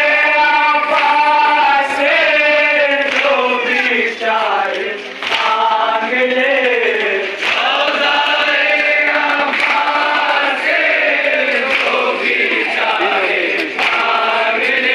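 Men's voices chanting a mourning lament together in a melodic call, with scattered slaps of hands striking chests in matam.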